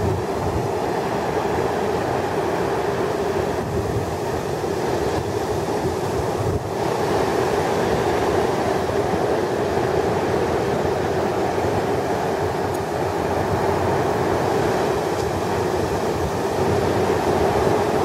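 Heavy ocean surf from large storm swells breaking, heard as a continuous dense roar that swells slightly about a third of the way in and again near the end.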